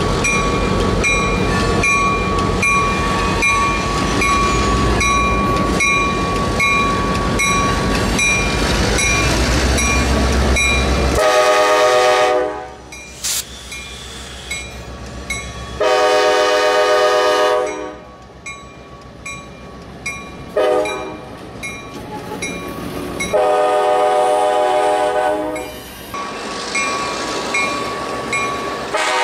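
Diesel freight locomotive hauling covered hopper cars over a grade crossing: loud engine and wheel rumble with its bell ringing about twice a second. From about eleven seconds in, the air horn blows the grade-crossing signal, two long blasts, one short and one long, with another blast starting near the end.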